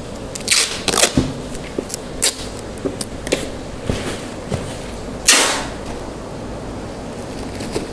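A black plastic rubbish bag crinkling as it is folded around a cardboard box, and clear packing tape being pulled off the roll in short rips. The longest and loudest rip comes a little after halfway.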